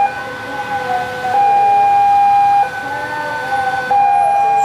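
An electronic warning siren sounding in a regular cycle. A loud steady tone of about 1.3 s alternates with a quieter tone of a different pitch, the loud tone coming round about every two and a half seconds.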